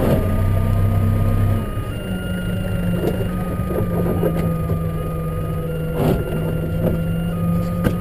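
Tractor engine running steadily, heard from inside the cab while pushing a snow plough; its note changes about two seconds in. A steady high whine runs along with it, and there are a couple of short knocks around six seconds in and near the end.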